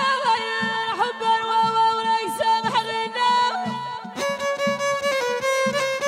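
Moroccan folk music from the Middle Atlas, led by a violin melody that slides between notes over a steady low repeating beat. About four seconds in, the playing moves to a brighter, higher phrase.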